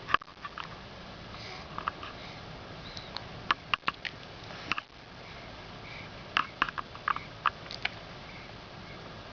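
Repeated short nasal sniffs and snuffles, coming in quick little clusters of two to four at a time.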